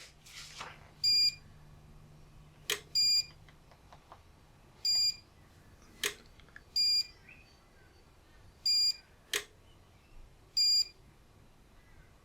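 Uninterruptible power supply (UPS) sounding its alarm: short, high beeps about every two seconds, with a sharp relay click between several of them. It is failing to come up even with a new battery, the sign of a faulty UPS.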